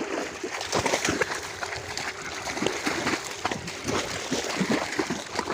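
Water splashing and sloshing irregularly as a dog is bathed.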